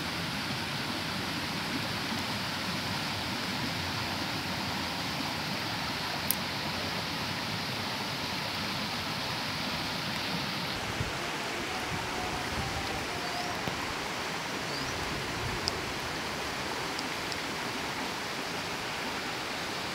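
Steady rushing of a shallow river running over rocks, with a few faint clicks on top.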